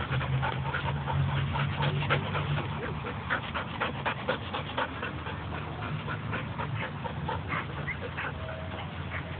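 Dogs playing, panting with quick scuffling noises close by.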